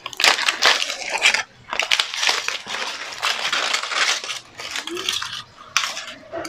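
Aluminium foil crinkling and crackling in repeated bursts as it is peeled open and pulled off a grilled milkfish.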